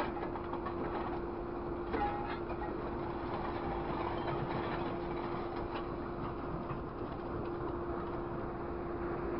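A scrap grapple truck's engine and hydraulics run steadily, a drone carrying one constant whining tone. A couple of short metal clanks come from the orange-peel grapple biting into scrap metal, one at the start and one about two seconds in.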